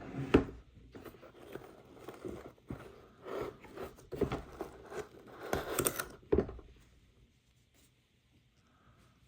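Toy packaging being handled and torn open: irregular crinkling and rustling with sharp tearing and scraping strokes. It stops about two-thirds of the way through.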